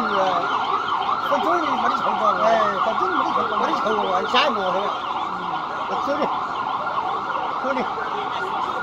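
A siren-like wail warbling rapidly up and down in pitch, steady throughout, with faint voices underneath.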